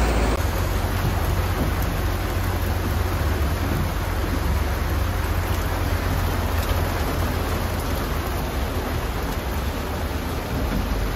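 Steady rain falling, with a low rumble of wind buffeting the microphone as the open-sided tram moves.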